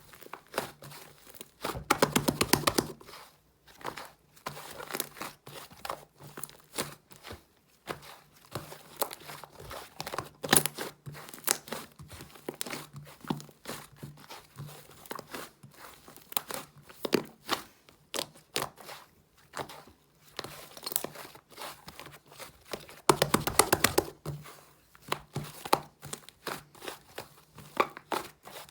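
Fluffy clay slime being squished and stretched by hand, making close crackling, tearing and popping sounds. Two louder, denser bursts come about two seconds in and about twenty-three seconds in. A faint steady hum sits underneath.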